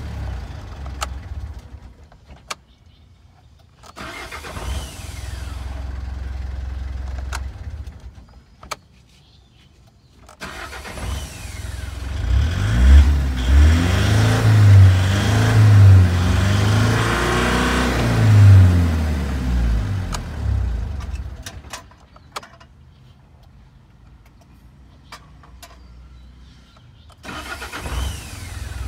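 Mitsubishi Fuso 4M50 four-cylinder turbodiesel idling, stopping and restarting several times, with small clicks in the quiet gaps. In the middle it is revved in a series of quick blips up to around 3000 rpm for about eight seconds, then falls back to idle. It stops once more and starts again just before the end.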